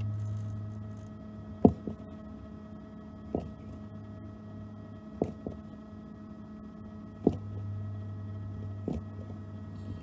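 Low steady hum of the caravan's water pump running against the closed tap while the pressure switch is adjusted. The hum drops about a second in and comes back up near the end. Several sharp clicks and knocks from the screwdriver working the switch's adjusting screw are heard over it.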